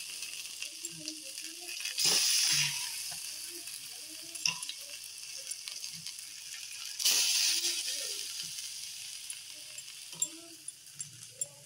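Besan-battered potato slices shallow-frying in oil on a flat pan. The steady sizzle flares up sharply about two seconds in and again about seven seconds in, dying down slowly after each.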